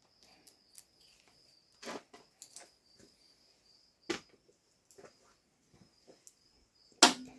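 Scattered metallic clicks and knocks of hand tools and bolts being handled on a manual transmission case, the loudest near the end, over a faint steady high-pitched tone.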